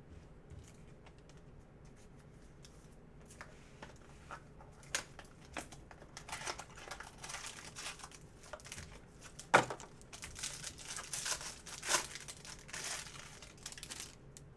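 Trading-card pack wrapper being torn open and crinkled, scattered small ticks at first, then a stretch of steady crinkling with one sharp snap midway.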